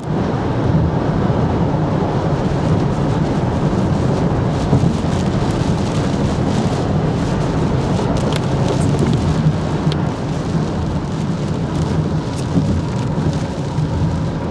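Heavy tropical-storm rain pouring steadily, with a low rumble underneath and scattered sharp ticks of drops striking close by.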